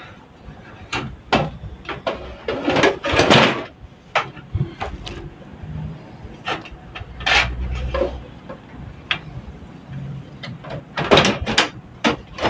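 A power supply unit being handled and fitted into a metal computer case: a series of knocks, clicks and scrapes, in bursts.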